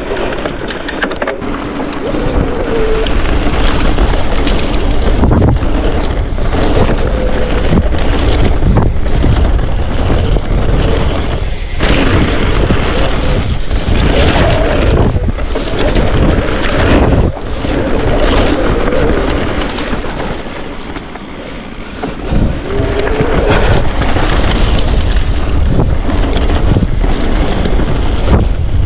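Mountain bike ridden over a wet, puddled trail: wind buffeting the camera microphone over the rumble of tyres and the rattle and clatter of the bike on rough ground. It eases off for a couple of seconds around twenty seconds in, then picks up again.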